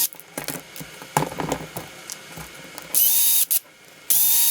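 Cordless electric screwdriver running in two short bursts near the end, each about half a second and quickly rising to speed, while backing screws out of an RC truck's front end. Light clicks of parts and tools being handled come before.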